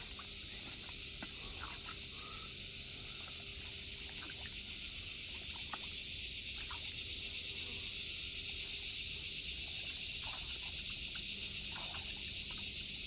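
Steady chorus of insects, a high even hiss, with a few faint clicks and knocks.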